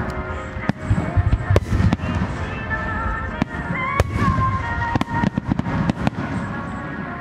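Aerial firework shells bursting one after another, with sharp cracks and low booms that come thick and fast from about five seconds in. Music plays underneath the explosions.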